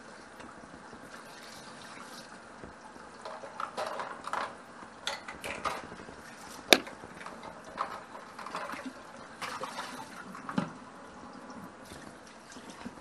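Kitchen cooking sounds: a steady liquid sound under a run of short utensil clinks and knocks, the loudest a sharp clack about seven seconds in.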